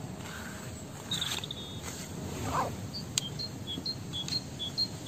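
A small songbird calling a repeated high two-note phrase, alternating high and low, about two notes a second from about three seconds in, after a short trill about a second in; a steady low rumble of outdoor noise underneath.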